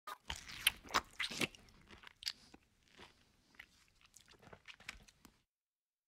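Land snail eating cucumber, its radula rasping the flesh in loud, wet smacking and crunching clicks. The clicks are dense for the first second and a half, come sparser after, and cut off suddenly about five and a half seconds in.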